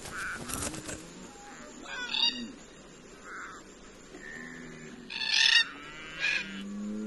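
Red-tailed black cockatoos calling: several short, scattered calls, the loudest a little past halfway. A bird's wingbeats are heard near the start as it takes off.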